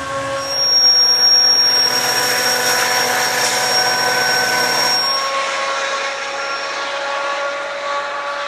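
MPI MP40PH-3C diesel locomotive howling as it approaches: a steady chord of several held tones with a high whine above it. The sound cuts abruptly twice as the takes change.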